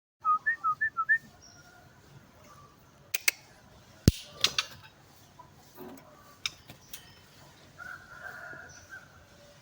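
Songbird calls: a quick run of five loud chirps in the first second, then a few sharp clicks and scattered calls, with a longer call near the end.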